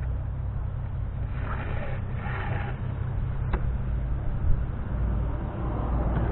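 Braided rope scraping as it is pulled through the plastic cam cleats on a sail kayak's deck, in two short pulls about one and a half seconds in, then a single sharp click. A low steady rumble runs underneath and is the loudest part.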